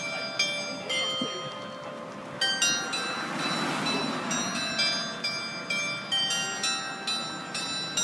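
Clock-tower bell chime playing a tune of single struck bell notes at changing pitches, each ringing on as the next is struck, about two a second, with a short pause about a second in. It is the chime marking six o'clock.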